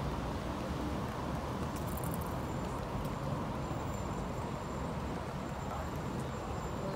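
City street ambience: a steady rumble of passing traffic with a general outdoor hum and no single event standing out.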